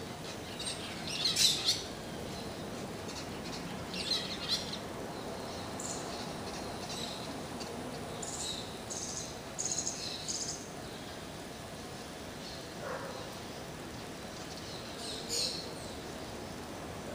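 Birds chirping in short, high bursts every few seconds, with a run of repeated calls around the middle, over a steady background hiss.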